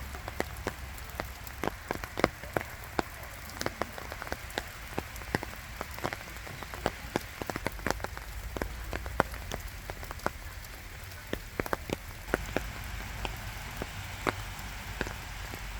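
Steady rain falling, with many close raindrops striking in sharp, irregular taps over a soft hiss.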